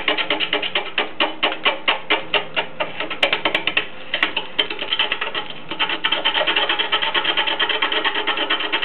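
Gouge cutting a large wooden blank spinning on a wood lathe. For the first six seconds it is an interrupted cut, pulsing about four to five times a second as the tool meets the uneven surface of a blank not yet trued round, with a few sharp clicks. About six seconds in it smooths into a steady continuous cut.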